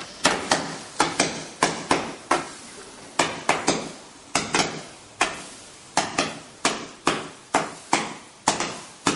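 Weco Firefighter multi-shot firework firing a rapid string of comet shots, each a sharp pop with a short decaying tail, about three a second.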